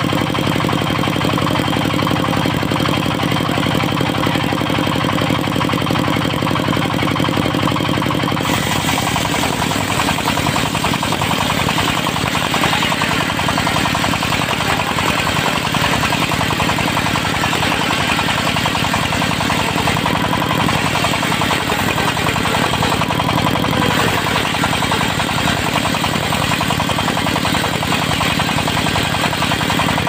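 Diesel engine driving a large circular sawmill blade, running steadily. About eight seconds in, the blade starts cutting into a teak log and a loud, steady sawing hiss joins the engine for the rest of the time.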